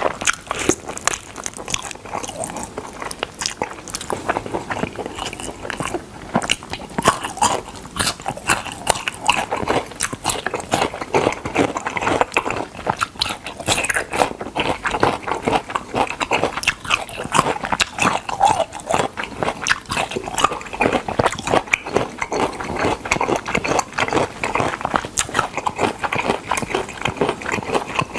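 Close-miked chewing and biting of smoked chicken: a dense, irregular run of wet mouth clicks and smacks with tearing and crunching bites.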